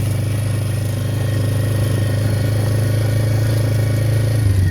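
ATV engine running steadily while riding, dropping to a lower note near the end as it slows.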